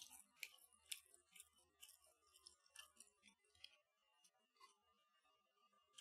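Fingertips rummaging through a pile of crisp air-fried breaded mini kievs on a plate: quick, light crackles and clicks of the crumb crust, dense for the first few seconds and then only now and then.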